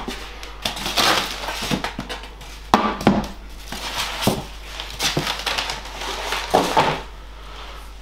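Packaging being handled: polystyrene foam and plastic wrap rustling and crinkling, with a few sharp knocks as hard parts are set down and picked out.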